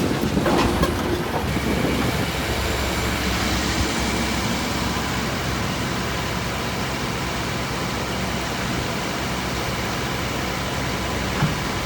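Diesel engine of a heavy earthmoving machine running steadily under work, with a few clanks in the first second or two and one more near the end.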